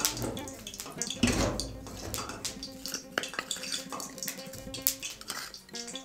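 A metal spoon clinking and scraping in a bowl in a few short strikes, over steady background music.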